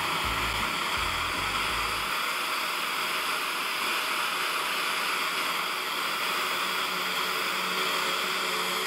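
Gas torch flame hissing steadily as it heats the steel of a forged helmet.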